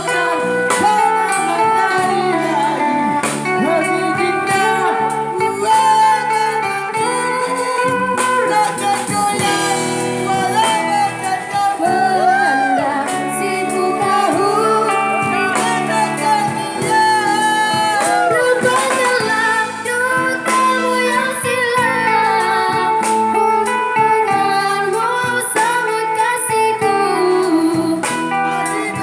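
Live band music through a small PA: a man singing into a microphone over guitar and a drum kit.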